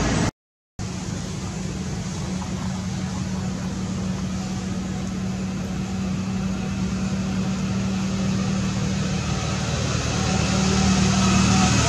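Steady low mechanical drone over a hiss, cutting out briefly about half a second in and growing slightly louder toward the end.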